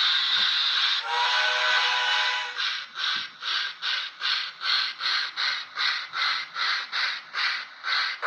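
DCC sound decoder in an H0-scale 4-4-0 steam locomotive model playing steam effects: a hiss, then a whistle blast of several tones lasting about a second and a half, then steady chuffing at about two to three beats a second.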